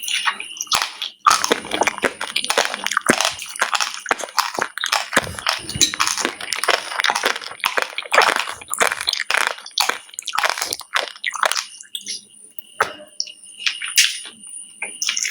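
Close-up chewing of a seeded banana: wet, squishy mouth sounds mixed with rapid irregular crunches as the hard seeds are bitten. The chewing is dense for most of the stretch, then slows to a few scattered crunches near the end.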